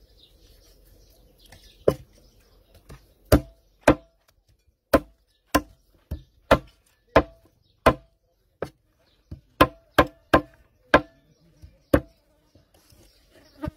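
A heavy cleaver chopping raw chicken pieces, bone and all, on a round chopping block. It comes as a run of sharp, separate chops, roughly one or two a second, starting about two seconds in.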